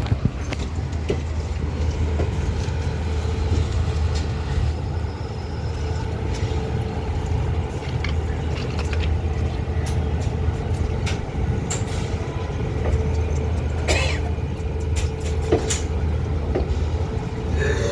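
Train in motion: a steady low rumble with scattered clicks and rattles and a faint steady hum.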